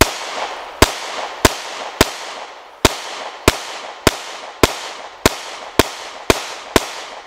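Sig Sauer P365XL 9mm pistol firing its first magazine, the first shots from the brand-new gun: twelve shots at a steady pace about two-thirds of a second apart, each followed by a decaying echo. The pistol cycles every round without a malfunction.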